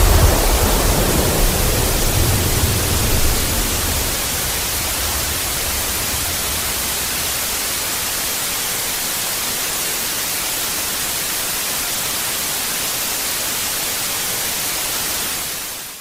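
Loud, steady television static hiss from a lost broadcast signal, with the low rumble of a blast dying away under it over the first few seconds. The hiss fades out near the end.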